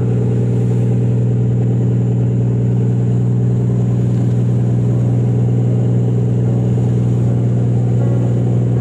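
A fishing boat's engine running steadily at constant speed: a loud, even low drone that does not change.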